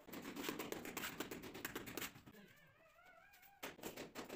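Gloved hands rubbing, patting and scraping a ceramic wall tile as it is pressed into its mortar bed: a dense run of quick scratchy clicks, stopping about two seconds in and returning near the end. In the gap, a short wavering pitched tone.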